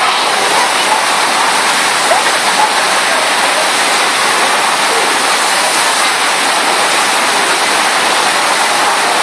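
Loud, steady rushing of water from a FlowRider surf-wave machine, a thin sheet of water pumped fast up its padded slope.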